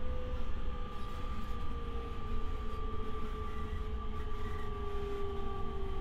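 E501 series electric train motor car running: a low rumble under a steady electric whine, with a second whine slowly falling in pitch as the train slows, heard from inside the car.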